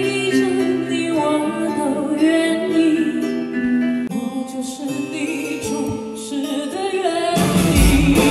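A woman singing a slow pop ballad live with instrumental accompaniment, holding long notes. About seven seconds in, the music turns fuller and louder with a deep bass.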